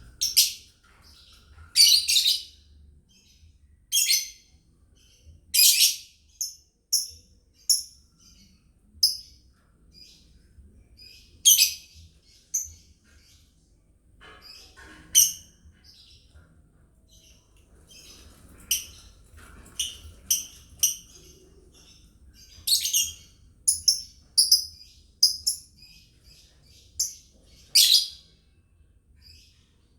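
Lovebirds chirping: short, shrill high-pitched chirps and calls, some single and some in quick runs, with brief pauses between them.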